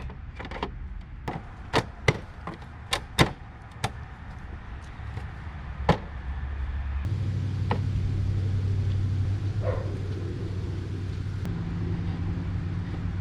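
Plastic motorcycle body panels being handled and fitted back on: a series of sharp clicks and knocks over the first six seconds. From about halfway through, a steady low hum grows louder and carries on.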